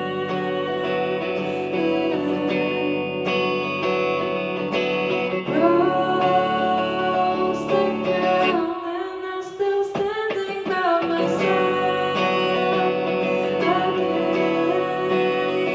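A band playing live, led by guitar. The bass and low end drop out for about two seconds past the middle, then the full band comes back in.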